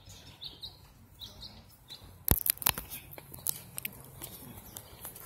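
Small birds chirping. About two seconds in comes a quick run of sharp clicks and taps, the loudest sound here.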